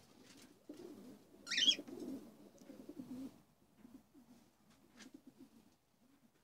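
Low, repeated cooing from aviary birds throughout, with one short, loud, high-pitched cockatiel call about a second and a half in.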